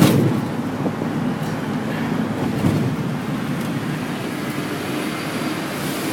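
Steady road and engine noise of a moving car heard inside the cabin, with a short click at the very start.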